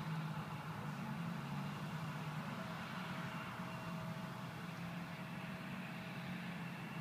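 Steady low engine hum with a faint higher whine over it, easing off slightly over the seconds.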